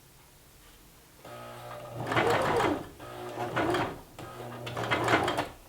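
Baby Lock Zeal sewing machine stitching in three short runs, its motor speeding up and slowing down each time, with a low hum between runs.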